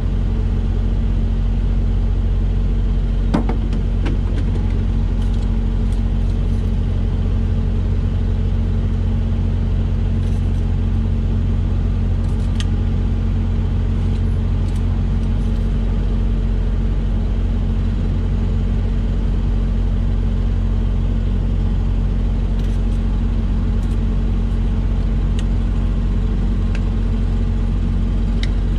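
Heavy truck diesel engine idling steadily, a constant low rumble, with a few sharp clicks from hands working in the engine bay.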